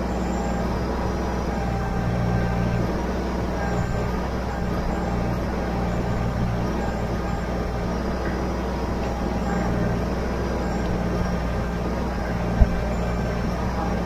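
Kubota BX23S compact tractor's three-cylinder diesel engine running steadily while the backhoe hydraulics lift a tree stump. There is a single sharp low thump near the end.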